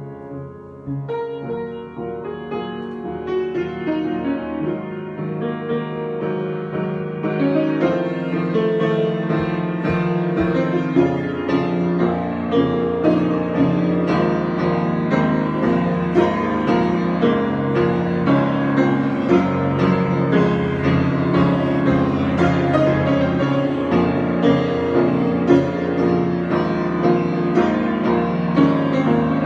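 Improvised solo piano playing, starting sparse and quieter, then growing fuller and louder about eight seconds in, with many notes sounding together.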